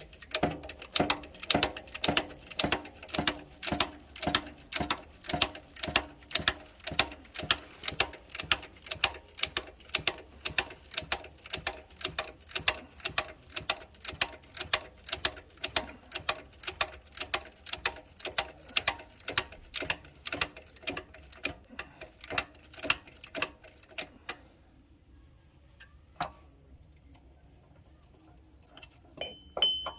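Rapid, even mechanical clicking, about three clicks a second, that stops abruptly about 24 seconds in.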